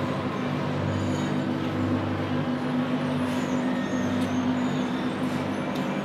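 Steady drone of running factory machinery: a strong constant hum with a low throb that swells about once a second.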